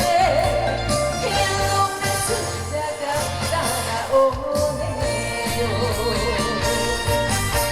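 Trot song performed live: a singer's voice over a backing track with a steady bass line.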